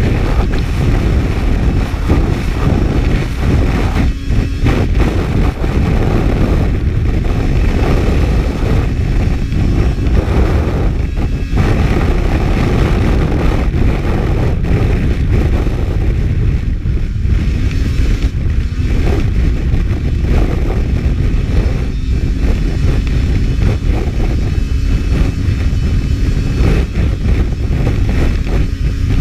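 Racing snowmobile running on lake ice, its engine mostly buried under heavy wind noise on the microphone. A faint steady engine tone shows through in the second half.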